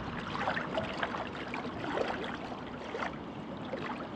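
River water lapping and gurgling in small wind-driven waves, with irregular little splashes.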